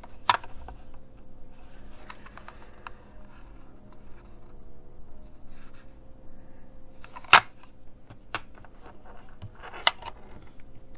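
Hands handling a plastic computer mouse and its cable on a wooden desk: a few sharp clicks and knocks, the loudest about seven seconds in, among light rustling and shuffling of the cable.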